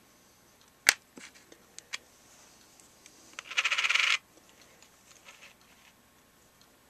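Coins being handled on a desk: a sharp click as a coin is set down about a second in, a few lighter ticks, then a quick rattling scrape of about half a second as a dime is slid into place, with faint ticks after.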